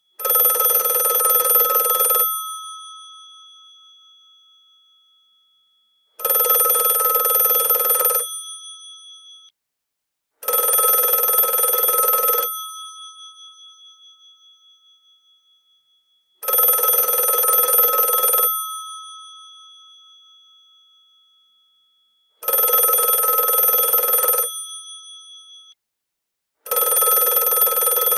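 The bells of a GPO 746 rotary telephone ringing: six rings of about two seconds each, the bell tone lingering and fading away after each ring stops.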